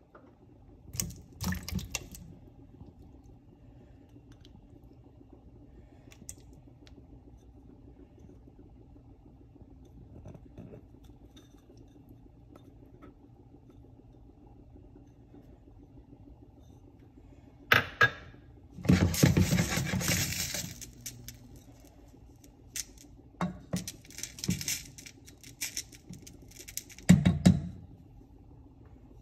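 Kitchen handling sounds: a small glass bowl and cubes of tofu clinking and knocking against a metal cooking pot in a few short clusters, with a brief rush of noise about two-thirds through. A steady low hum runs underneath.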